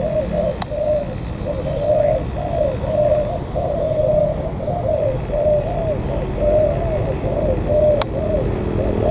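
Spotted dove cooing: a long run of low, arched coo notes repeating about two to three times a second, with a short break about two seconds in. Two sharp clicks cut in, one just under a second in and one near the end.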